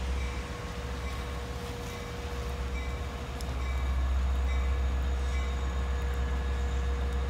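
An approaching train gives a steady low rumble that grows louder about halfway through. A short high tone repeats about once a second over it.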